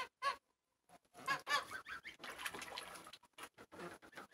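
Domestic white geese calling in a run of short, repeated honks, busiest about a second and a half in.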